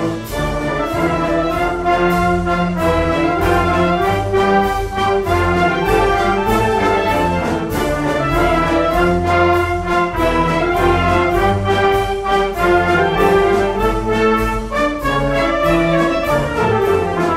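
Instrumental music with prominent brass, many sustained notes over a steady beat.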